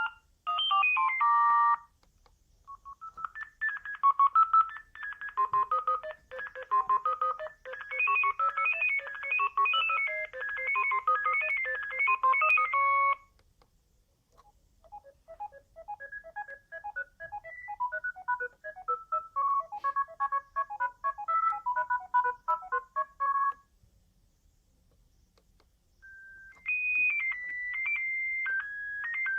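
Sagem myX-1 Trio mobile phone playing its built-in ringtones in turn, beeping electronic melodies. The tail of one tune is followed by two melodies of about ten seconds each, and another starts near the end, with short pauses between them.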